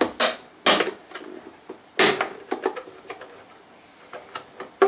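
Stiff clear plastic packaging around a CPU cooler being handled and unwrapped: a few short, sharp crackles and clicks, the loudest near the start and about two seconds in, with smaller ones near the end.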